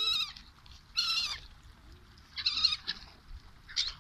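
Gulls calling over water: four harsh squawking calls, each slightly falling in pitch, about a second apart.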